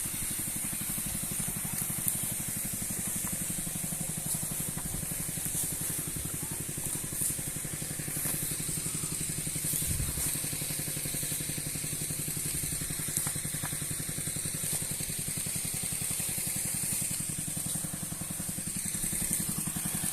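Small petrol engine of a Sanchin power sprayer running steadily at a constant speed as it pumps herbicide through a long spray hose. A steady high hiss runs over it.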